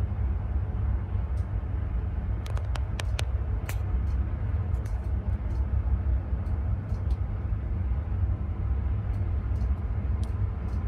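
Search-and-rescue helicopter hovering close by: a steady, heavy low rumble. A quick cluster of sharp clicks comes about two and a half to four seconds in.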